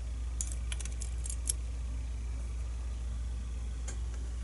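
Small, light metallic clicks and ticks of tiny lock parts and a pick or tweezers being handled during disassembly: a quick cluster in the first second and a half and one more near the end, over a steady low hum.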